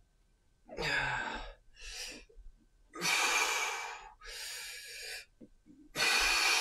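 A man breathing hard from exertion while swinging a clubbell: three loud, heavy breaths a few seconds apart, each followed by a softer breath.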